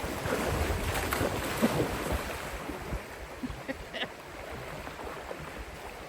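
Creek water splashing and running, with wind rumbling on the microphone; the splashing is busier in the first three seconds, then settles.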